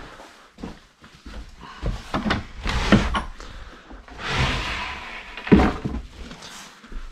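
Footsteps, knocks and rustling from someone moving through a cluttered room and handling things, with a heavy thump about five and a half seconds in, then a door being handled near the end.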